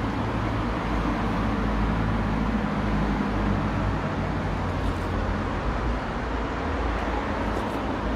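Steady background rumble with a hiss over it, even and unbroken, with a couple of faint ticks.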